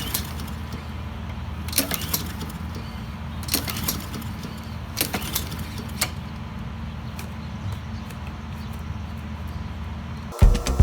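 Several sharp metallic clicks and knocks, a few seconds apart, over a steady low rumble, as parts are handled on a lawnmower. Music cuts in abruptly at the very end.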